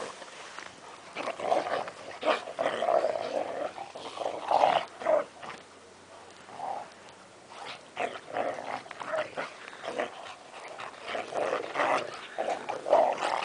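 A young Rottweiler and a young Maremma sheepdog growling at each other as they play-fight, in irregular bursts with a quieter spell around the middle.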